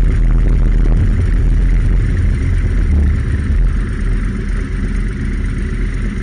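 Motorcycle engine running with a steady low rumble as the bike slows and comes to a stop; the sound eases off a little in the second half as the bike comes to rest.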